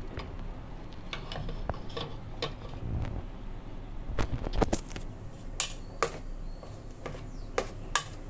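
Plastic spoon stirring thick pancake batter in a stainless steel pot, knocking and scraping against the pot's side in irregular clicks, with the loudest cluster about four to five seconds in.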